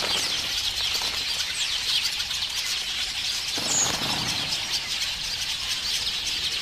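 A colony of weaver birds chattering: many short, high chirps overlapping in a continuous chorus.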